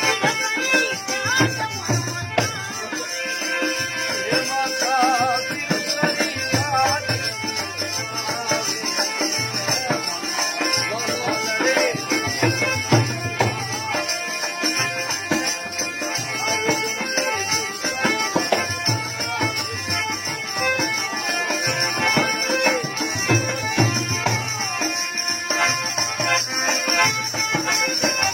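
Traditional Marwari folk music from Rajasthan, with melodic lines over a low, recurring beat.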